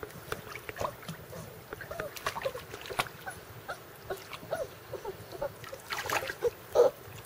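Five-week-old Weimaraner puppy paddling in pool water with small splashes, giving many short rising-and-falling whines.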